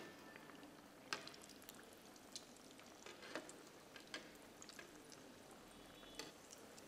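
Faint sizzle of cashew nut vadas deep-frying in oil, with a few scattered sharp crackles and pops.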